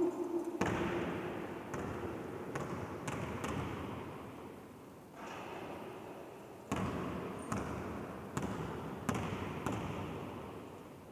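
A basketball strikes the metal hoop with a brief ring, then bounces on the hardwood gym floor about a dozen times at uneven spacing, each bounce echoing through the large empty hall.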